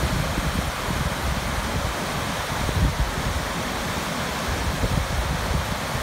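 Whitewater rapids of a rocky river rushing over boulders and small cascades: a steady, full rushing hiss of water.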